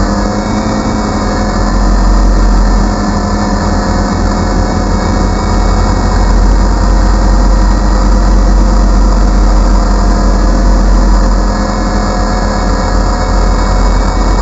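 DJI Phantom quadcopter's motors and propellers droning steadily in flight, picked up close by the onboard GoPro's microphone.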